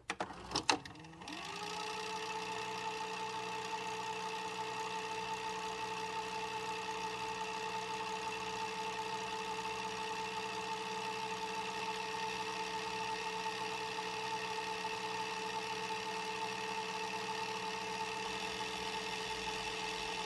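VHS VCR tape mechanism: a couple of loud clicks, then the motor spins up over about a second and a half into a steady whir that holds.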